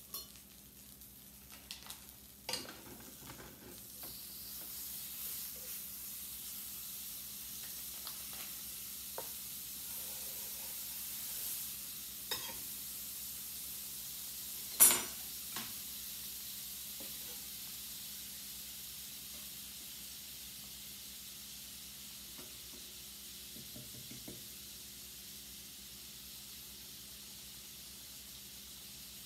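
Butter sizzling in a skillet as a fried apple pie cooks in it, the sizzle swelling a few seconds in and slowly fading toward the end. A few sharp clicks and knocks cut through it, the loudest about fifteen seconds in.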